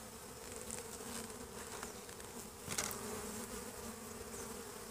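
Honeybees buzzing around an open hive, a steady hum, with one brief knock a little over halfway through.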